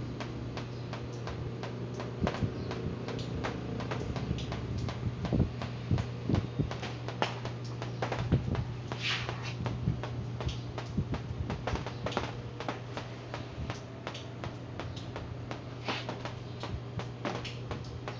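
Orbit electric fan's newly fitted motor running with a steady low hum, under scattered light clicks and knocks.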